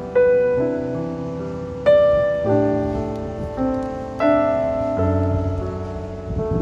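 Background piano music: slow, gentle notes and chords struck one after another and left to ring out.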